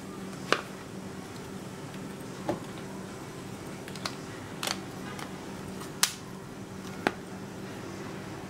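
Phone and hard shell of a leather flip case clicking and tapping as a Samsung Galaxy S5 is handled and pressed into the case: about half a dozen short, sharp clicks, over a steady low hum.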